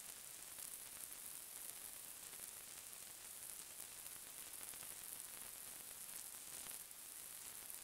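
A faint, steady high-pitched hiss with a slight flicker, and no distinct events.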